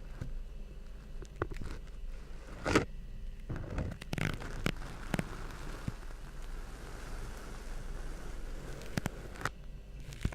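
Kinetic sand being cut and crushed: irregular soft crunches and scrapes, with the sharpest strokes a little under 3 seconds in and around 4 seconds.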